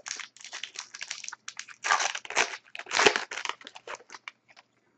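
A foil trading-card pack wrapper being torn open and crinkled by hand: irregular crackling rustle, loudest in two bursts near the middle, then dying away into a few small crinkles.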